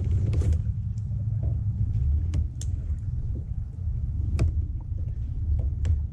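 Wind buffeting the microphone as a steady, fluctuating low rumble, with a few short clicks and taps scattered through it.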